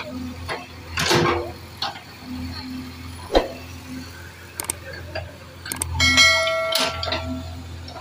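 JCB 3DX backhoe loader's diesel engine running steadily while the backhoe digs, with scrapes and a sharp knock of the bucket in the soil. About six seconds in, a short bell-like chime rings.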